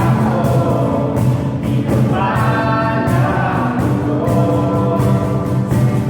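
Christian worship song: several voices singing together over instrumental backing, the sung lines holding and gliding between notes.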